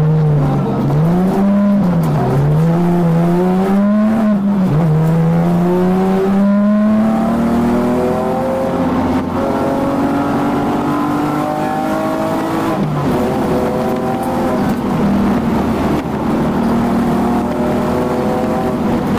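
BMW 128i race car's straight-six engine heard from inside the cockpit. It revs up and down several times over the first few seconds, then pulls steadily with its pitch slowly rising and holding high, with one brief dip about two-thirds of the way through.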